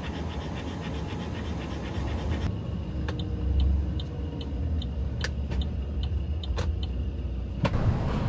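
Vehicle running with a steady low rumble. Partway through comes a run of light, regular ticks, about two or three a second, with a few sharp clicks among them.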